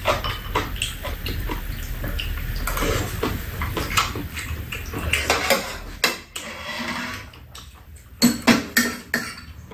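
Close-up eating sounds of two people eating stir-fried cuttlefish: wet chewing, smacking and slurping, with spoons and chopsticks clicking against the pan and bowls; a few sharper clinks near the end.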